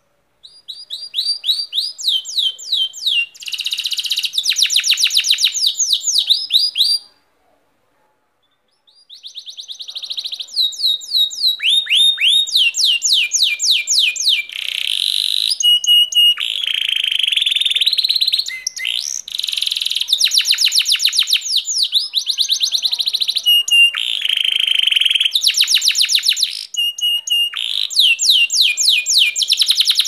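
Domestic canary singing: long phrases of fast rolls of repeated chirping notes, many sliding down in pitch, with a break of about two seconds about seven seconds in before the song resumes and carries on.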